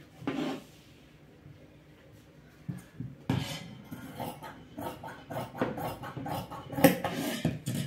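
Steel tailor's shears cutting through dress fabric: a quick, irregular run of snips and blade clicks that starts about three seconds in. A brief rustle of fabric being handled comes near the start.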